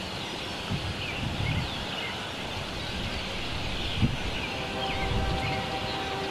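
Outdoor rural ambience: small birds chirping faintly over a low, uneven rumble. A faint steady hum comes in about two-thirds of the way through.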